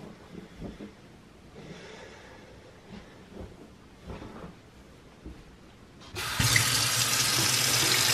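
Kitchen faucet turned on about six seconds in, water running in a strong, steady stream into a stainless steel sink.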